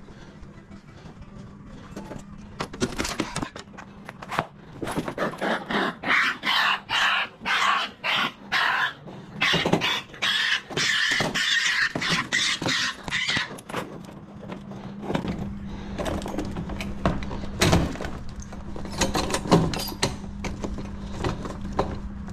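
Raccoons giving harsh, repeated calls about twice a second for several seconds, mixed with scrapes and knocks, over a steady low hum.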